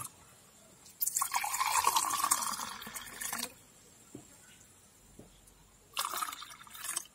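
Tender coconut juice poured from a jug into a glass tumbler, twice: one pour about a second in lasting some two and a half seconds, and a shorter one near the end.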